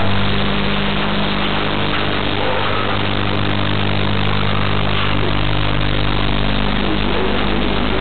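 Steady low electrical hum under a constant hiss, the typical noise of a security camera's built-in microphone.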